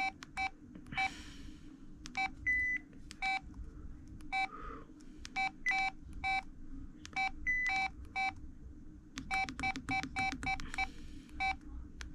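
LG VM101 phone's keypad beeping at each key press as its menus are stepped through: many short beeps in irregular runs, with a couple of brief higher single tones among them.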